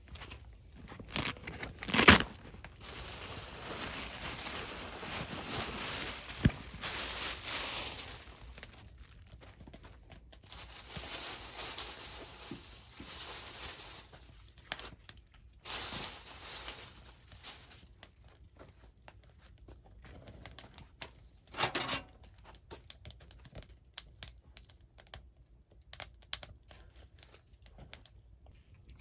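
Rustling and crinkling of material being handled, in long stretches, with a sharp knock about two seconds in and another a little after twenty seconds, then scattered small clicks.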